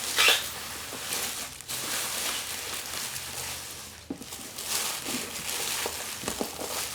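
Rustling and scraping as a spool of fibre optic cable is handled and turned, with a sharper knock or crackle just after the start.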